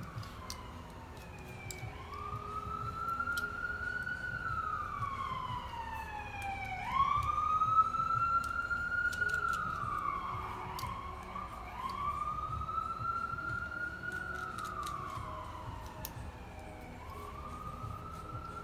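Emergency vehicle siren wailing, its pitch rising and falling slowly in cycles of about five seconds, loudest about seven to eight seconds in.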